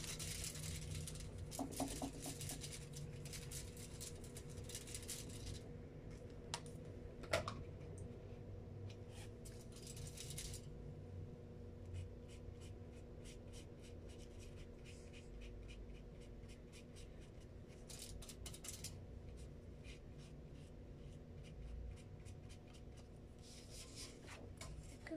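Felt-tip marker scribbled hard onto crinkled aluminium foil for about five seconds, laying down ink to make marker paint. After that, a brush dabs and strokes on paper in short scratchy bursts.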